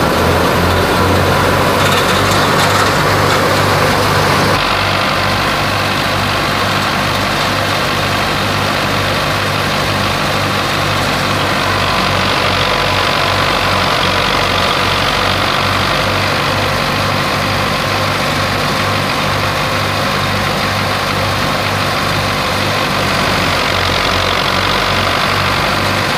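Belarus 510 tractor's diesel engine running steadily under load, driving a wheat thresher through its PTO, mixed with the whirring and rushing of the thresher as straw is fed in. The sound changes a little about four and a half seconds in.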